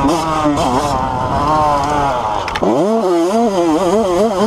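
Honda CR85 85cc two-stroke dirt bike engine running under way, its revs rising and falling with the throttle. About two and a half seconds in the revs drop sharply, then climb back up.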